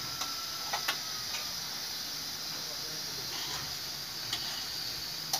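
Aluminium pressure cooker hissing steadily as steam leaks from its valve after the burner has been turned off: the cooker is letting down its pressure. A few faint ticks.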